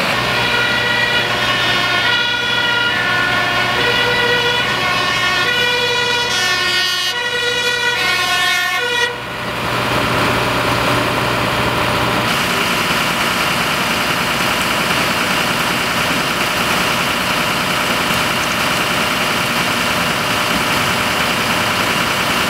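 Emergency vehicle's two-tone siren, alternating between two pitches, cutting off about nine seconds in. Steady engine running noise continues after it.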